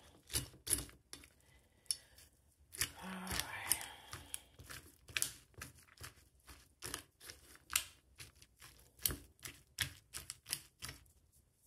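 Metal fork clicking and scraping against a metal dog bowl as scrambled eggs are stirred into dry kibble, in irregular taps with a longer scrape about three seconds in.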